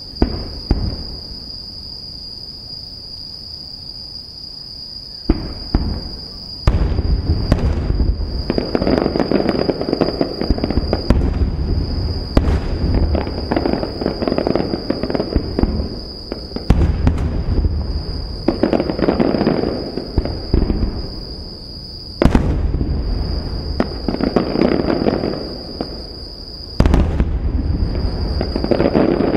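Aerial firework shells bursting with sharp bangs, about seven spread every few seconds, each followed by a long rolling rumble of echo. A steady high chirring runs underneath.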